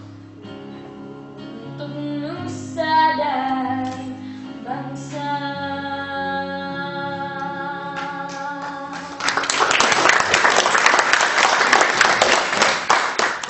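A young girl sings into a microphone over an instrumental accompaniment and ends on a long held note. About nine seconds in the song stops and applause breaks out, louder than the singing.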